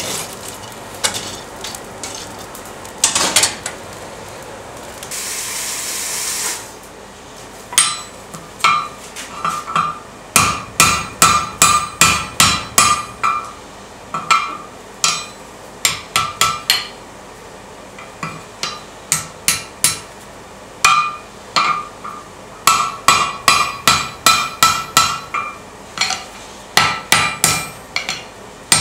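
Hand hammer striking a red-hot iron holdfast bar on an anvil, bending its end over the horn: runs of ringing blows, about three a second, with short pauses between runs. Before the hammering starts, about seven seconds of scattered clinks and a brief hiss.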